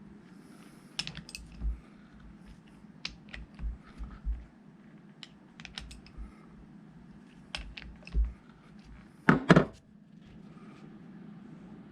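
Scattered metallic clicks, taps and clinks of hand tools and parts being handled on a tractor hydraulic pump assembly, with a louder cluster of knocks about nine seconds in.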